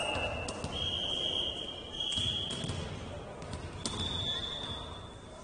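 Ball thumping on an indoor court during a match, with sharp knocks about half a second, two seconds and four seconds in. Two high steady tones sound over it, each lasting one to two seconds.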